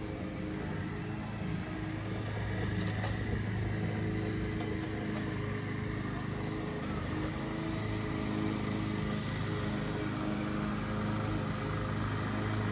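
A steady mechanical drone, like an engine or motor running: a low hum with a faint high whine above it, and a few faint clicks.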